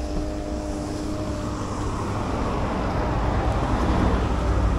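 Road traffic noise: the rumble of a motor vehicle, growing louder over the last couple of seconds.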